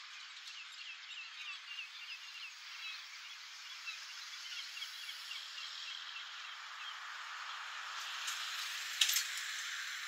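Small birds singing by a river: a fast run of repeated chirps in the first few seconds, then scattered notes. Under them is a steady hiss of distant rush-hour traffic that grows louder near the end. A short sharp crackle comes about nine seconds in.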